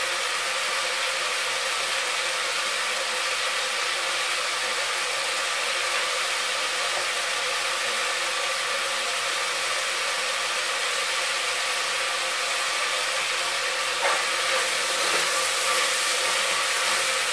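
Vegetables frying in oil in an open pressure cooker, a steady sizzling hiss, with a single knock about fourteen seconds in.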